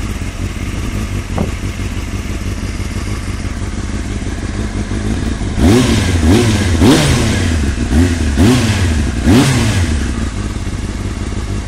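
Honda CBR600F inline-four engine idling, then blipped about six times in quick succession, each rev rising and falling back, before it settles to idle again. The owner calls the knocking noise from this engine dodgy.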